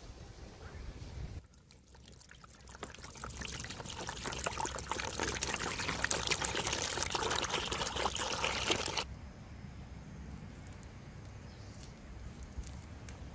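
Water poured in a steady stream into a plastic basin, splashing into the water already in it. The pour swells over a few seconds and then stops suddenly.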